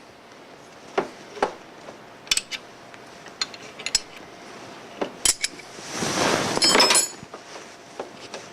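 Metal wrenches clinking and tapping on the hose fitting at the side of a brake manifold as the hose is worked loose: a scattering of sharp metallic clinks, with a louder scraping rattle lasting about a second around six seconds in.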